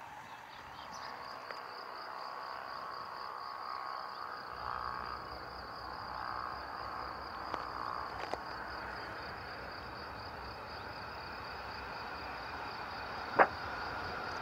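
Cricket-like insect trilling steadily in a high pitch. From about four seconds in, a low rumble of a BLT Schindler tram approaching on the track grows slowly, and near the end there is one sharp click, the loudest sound.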